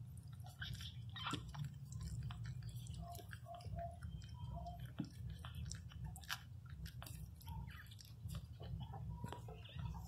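Newborn miniature pinscher puppies suckling at their mother: a steady run of small wet smacking and sucking clicks, with a few faint short squeaks about three to four seconds in.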